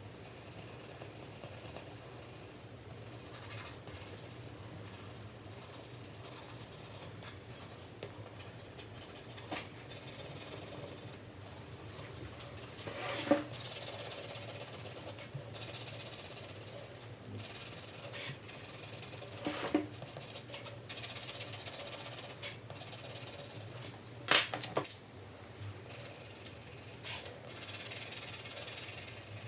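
4B graphite pencil shading on paper: continuous scratchy rubbing in repeated strokes, with a few sharp clicks.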